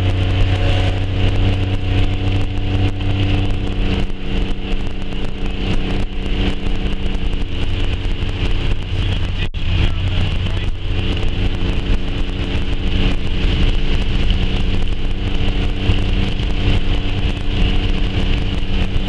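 Steady hum of a vehicle heard from inside the cab, with gusty wind buffeting the vehicle and the microphone. The sound cuts out very briefly about halfway through.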